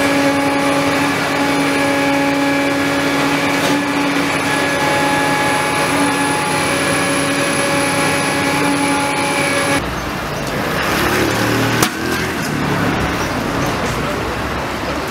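Steady drone of worksite machinery running, with several steady tones held throughout. About ten seconds in it cuts to general street noise, with one sharp knock a couple of seconds later.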